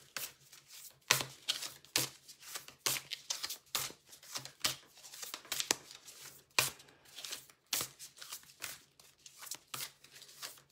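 A deck of oracle cards being shuffled and handled by hand: a run of irregular soft card snaps and rustles.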